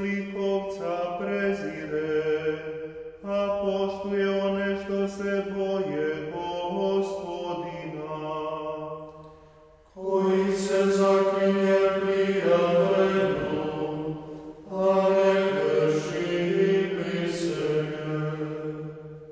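A nine-voice male ensemble of Franciscan friars sings Vespers chant in harmony, unaccompanied. There are four sung phrases, each starting after a brief breath.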